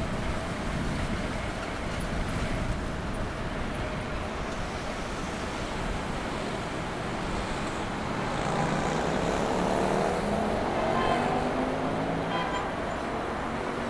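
Steady city street traffic noise. About eight seconds in, a vehicle accelerates past, its motor note rising in pitch for several seconds.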